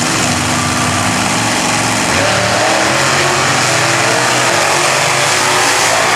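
Monster truck engine running hard at high revs, loud and steady, with a shift in engine pitch about two seconds in.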